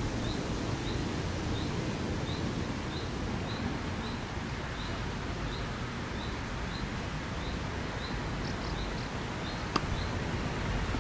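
Outdoor wind noise on the microphone with a short high chirp repeating evenly about every two-thirds of a second. Near the end comes a single sharp pop of a tennis racket striking the ball on a serve.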